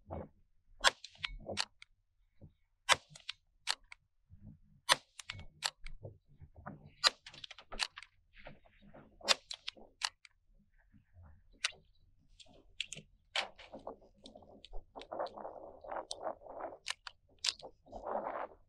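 A series of sharp, separate cracks from a CZ 515 .22 Magnum rimfire rifle being fired repeatedly, spread irregularly over the stretch. Late on comes a patch of rougher, rustling noise between the shots.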